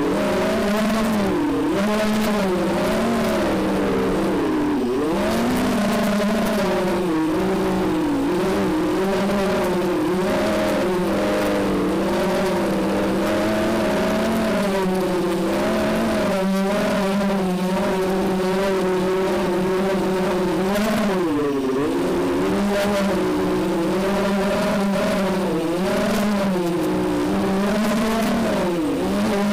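Small FPV racing quadcopter's motors and propellers whining, recorded by its onboard camera. The pitch rises and falls constantly with the throttle, over a steady lower tone.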